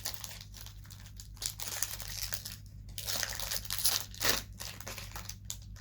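Plastic wrapping crinkling and rustling as it is handled and opened, in irregular crackles with a sharper one about four seconds in.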